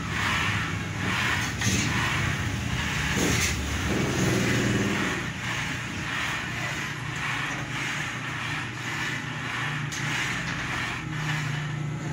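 Stepper motors driving a homemade CNC plasma table's gantry along its metal rails: a steady motor hum whose pitch shifts as the axes change speed, with the rumble of bearing rollers running on the tubing.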